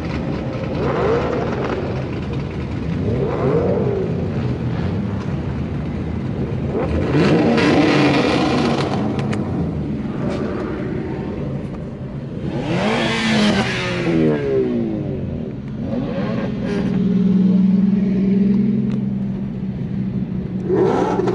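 Car engines running and accelerating in several surges. The loudest surge, about twelve seconds in, rises and then falls in pitch. Partly heard from inside a moving car's cabin.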